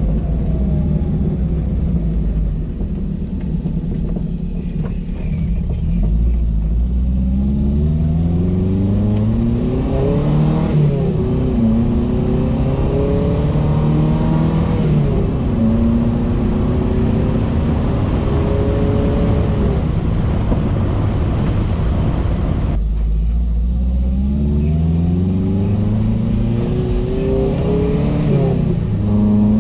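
Mitsubishi Lancer's engine pulling up through the revs while driving. Its pitch climbs, drops at each gear change and climbs again, then settles into a steady cruise. Near the end it pulls up through the revs once more.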